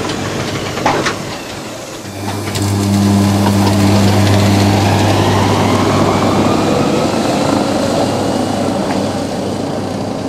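Electric rack-railway train of the Tramway du Mont Blanc passing close by and pulling away. A loud steady electric hum sets in about two seconds in, then the traction motors' whine rises in pitch as the train gathers speed. There is a single knock about a second in.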